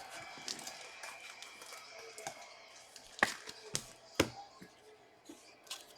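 Trading cards being handled and flipped through, with small rustling and sliding sounds and three sharp taps or snaps between about three and four and a half seconds in.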